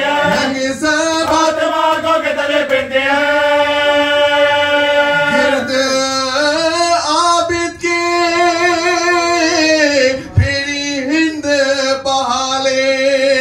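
A man chanting an Urdu noha, a mourning lament, solo into a microphone, holding long wavering notes between short breaks. A single thump about ten seconds in.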